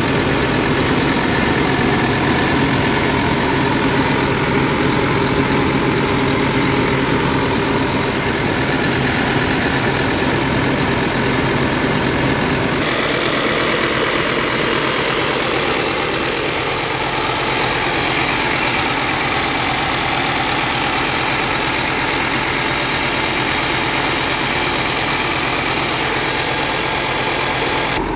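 Scania P360 tractor unit's diesel engine idling steadily with the cab tilted forward and the engine bay open.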